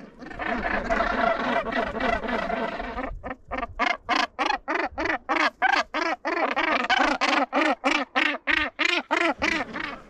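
Northern gannets calling at the nesting colony: a jumble of overlapping calls, then from about three seconds in a rapid, even series of short calls, about three a second.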